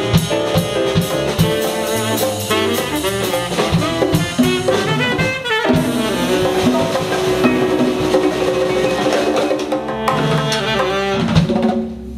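Small jazz combo playing: tenor saxophone over electric bass, piano and drum kit with percussion. Near the end the band holds a long final chord, hits a last accent and stops.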